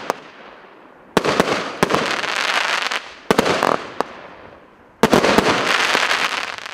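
'Christmas Souvenir' (ОТС 5086) consumer firework battery firing: about five shots, each a sharp bang followed by a second or two of dense crackling that dies away before the next.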